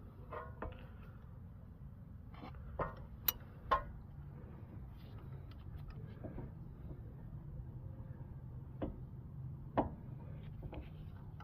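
Scattered sharp metal clicks and clinks, one louder clink about three seconds in, as a brake caliper piston compressor tool is turned and handled against the caliper. A low steady hum runs underneath.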